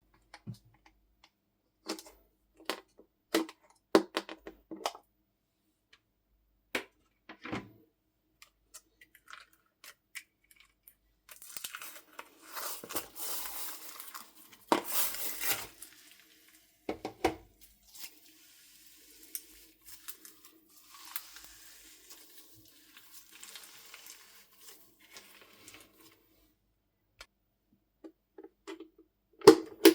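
Slime being kneaded and stretched together with soft clay: scattered sticky clicks and pops, with a longer stretch of crackling, tearing texture in the middle and softer rustling after it.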